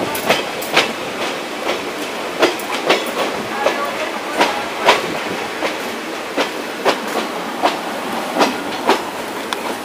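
Passenger train wheels clattering over rail joints, heard from an open coach doorway beside a train on the next track: sharp clacks, often in quick pairs about half a second apart, over a steady rumble.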